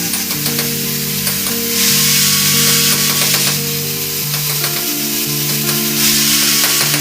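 Background music: sustained notes stepping to new pitches every second or so, over a loud hiss that swells and fades.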